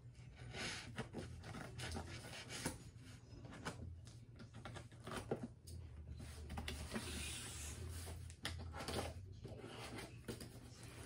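Packing tape on a cardboard shipping box being cut and scraped open with a hand tool, in irregular scrapes and small ticks. About seven seconds in there is a longer hiss of cardboard rubbing as the box is turned and slid across the bedspread.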